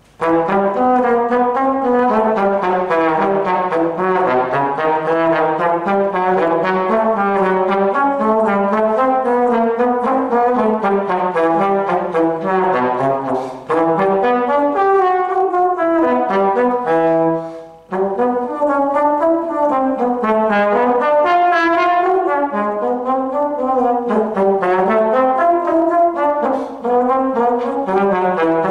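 Solo trombone playing a lively melodic passage with no accompaniment, one note after another across a wide range, with two short breaks about 14 and 18 seconds in.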